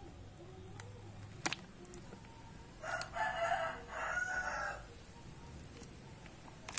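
A rooster crowing once, a call of about two seconds starting about three seconds in. A single sharp click comes shortly before it.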